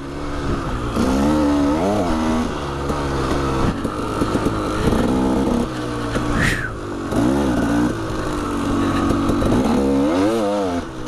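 KTM 300 two-stroke dirt bike engine being ridden hard, its pitch rising and falling again and again as the throttle is opened and closed. There is a brief sharp noise about six and a half seconds in.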